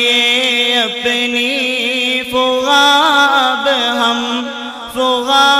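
A man chanting a naat into a microphone, one voice drawing out long held notes with wavering, gliding ornaments between the lines of the verse, with a brief breath about five seconds in.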